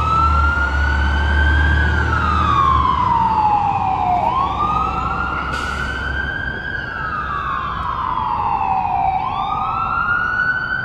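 Fire engine's electronic siren in wail mode, rising and falling slowly about every five seconds. Underneath, the truck's low engine rumble stops about halfway through.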